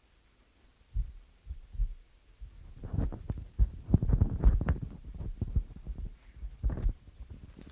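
Handling noise from a handheld microphone as it is passed between two presenters: irregular low thumps and knocks picked up by the mic itself. It starts about a second in, is thickest in the middle, and has a last few knocks near the end.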